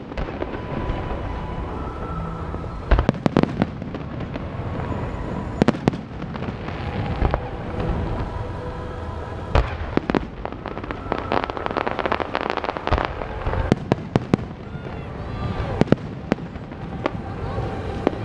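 Aerial fireworks display: shells launching and bursting in an irregular series of sharp bangs.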